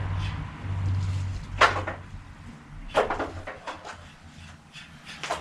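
Sharp clacks and knocks of a spoked bicycle wheel being handled against a bike: two loud strikes about a second and a half apart, then lighter ticks and one more strike near the end. A low hum stops about two seconds in.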